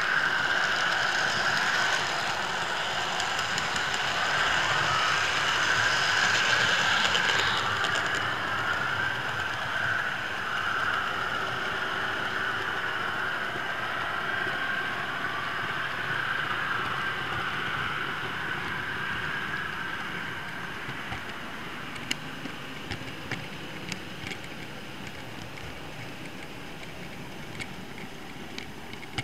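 Model train running with a camera truck along model railway track: a steady whine of the locomotive's motor and the rattle of wheels on the rails. The whine fades about two-thirds of the way through, leaving a quieter rolling sound with scattered sharp clicks.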